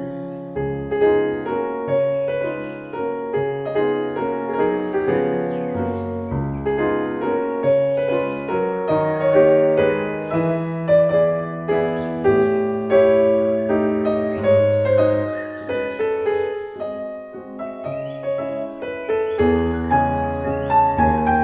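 Soft background piano music: a slow melody of sustained notes over held low bass notes.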